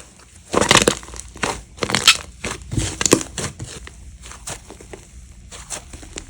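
Crunchy slime being squished and pressed by hand, crackling and popping in dense clusters for the first few seconds, then thinning to scattered clicks.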